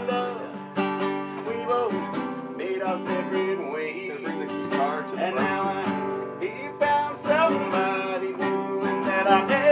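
A nylon-string acoustic guitar being strummed and picked, with a man singing over it.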